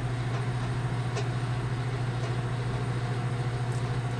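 A 1,000-watt microwave oven running, a steady low hum, in the last seconds of a heating cycle on a cup of water.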